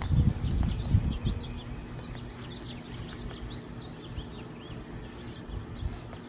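Small wild birds chirping over and over in the background, many short high chirps, with a few dull low thumps in the first second or so.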